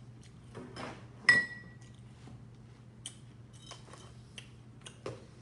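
Tableware clinking on a table: one sharp clink with a short ring about a second in, then a few faint taps and knocks, over a low steady hum.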